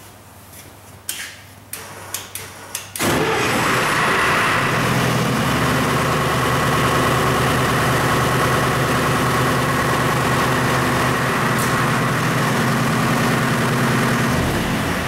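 A few sharp clicks of the control-panel switches, then about three seconds in the MEP-004A generator's four-cylinder diesel engine starts and runs steadily and loudly, still turning at a low speed below its normal operating RPM.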